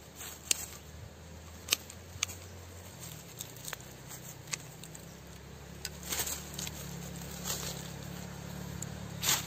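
Pruning shears snipping roots at the base of a serut (Streblus asper) shrub: a few sharp clicks, the loudest in the first couple of seconds. Rustling of dry leaf litter and soil around them, a burst about six seconds in and another near the end.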